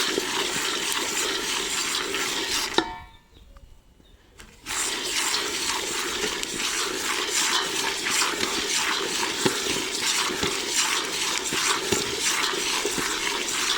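Peanuts being stirred as they dry-roast in a saucepan: a steady rustling hiss full of small rattling clicks as the nuts tumble and scrape against the pan. It cuts out to near silence for about two seconds near three seconds in, then resumes.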